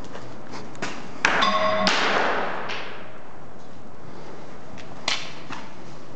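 A sharp knock followed by a short ringing tone, then a rustling scrape that fades. Another sharp knock comes about five seconds in.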